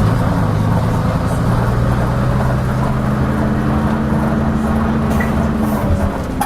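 Leyland Atlantean bus's six-cylinder diesel engine running steadily at an even pitch while the bus is under way, heard from on board, with the rumble and rattle of the bus around it.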